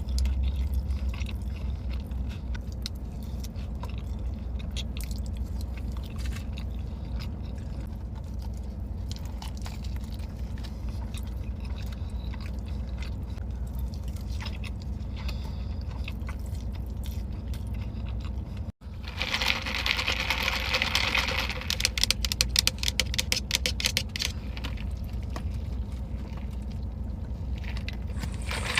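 Close-miked eating: chewing, biting and crunching food, over a steady low hum. About two-thirds in, after a brief cut, a louder stretch of crisp crunching comes in, with a rapid run of crackles.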